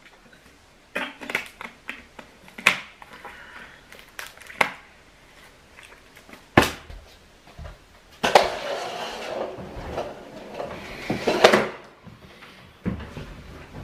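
A plastic water bottle crackling and crinkling in hands: a run of sharp crackles and clicks, one louder snap about six and a half seconds in, then a few seconds of dense crinkling.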